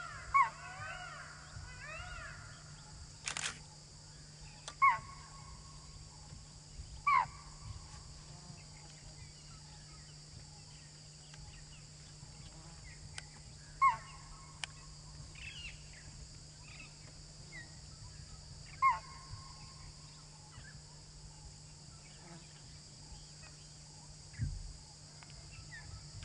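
Spotted deer (chital) giving sharp alarm calls: five single calls a few seconds apart, each dropping quickly in pitch. These are the warning a chital herd gives when a predator such as a tiger is in sight. Faint bird chirps sound at the start.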